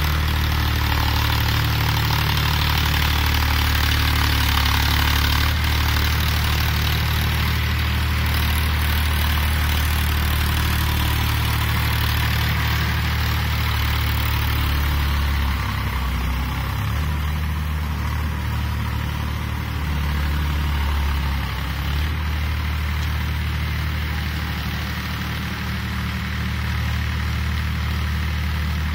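Diesel tractor engine running steadily as it pulls a rotavator tilling the soil, with a broad hiss from the rotating blades churning the earth. The engine note dips slightly about halfway through.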